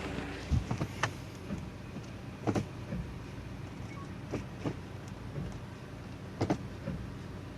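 Volvo V60's automatic transmission being shifted between D and R: sharp knocks in pairs about every two seconds. The knocks are the shift shock and abnormal noise the owner is checking.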